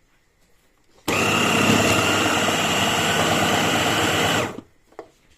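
Electric blender with a chopper bowl running in one steady burst of about three and a half seconds, with a high whine in it; it starts abruptly about a second in and stops, and a faint click follows.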